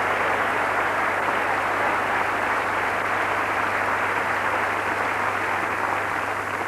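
Large theatre audience applauding: dense, steady clapping that thins near the end.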